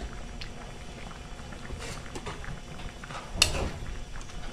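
Pan of vegetables in coconut milk simmering, a steady low bubbling hiss with scattered small ticks, and one sharp click about three and a half seconds in.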